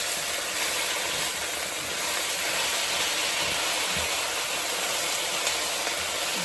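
Chicken stir fry in sauce sizzling steadily in the pan on low heat.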